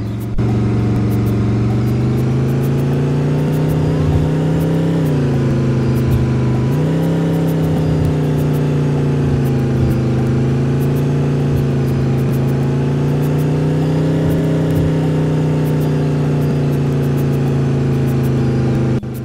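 Bus engine running hard at fairly steady revs. Its pitch dips about five seconds in and climbs back about two seconds later, with faint ticking rattles throughout.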